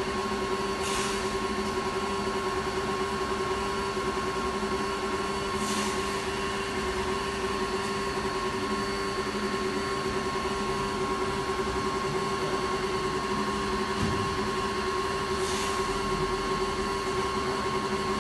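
Air compressor running with a steady mechanical hum, broken by three short hisses: about a second in, near six seconds and near sixteen seconds.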